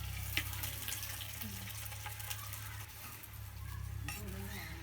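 Country chicken sizzling in hot sesame oil in a pan, a steady frying hiss with a few sharp clicks of the stirring utensil.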